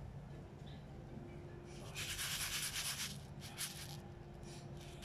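Small rhinestones shifting and sliding against each other in a round plastic tub as it is handled and tilted: a hissing swish lasting about a second near the middle, then a few shorter swishes.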